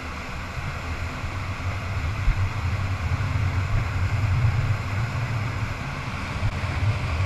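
Motorboat engine running steadily at speed while towing, a low drone under the rushing noise of wind and the churning wake.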